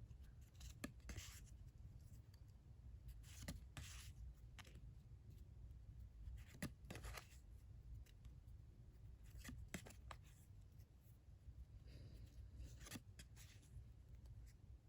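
Faint rustling and sliding of printed photo cards being handled, a soft paper swish every few seconds with light taps between.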